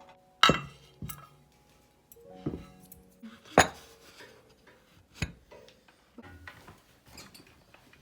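Dishes and glassware clinking: about five sharp clinks that ring briefly, over soft background music.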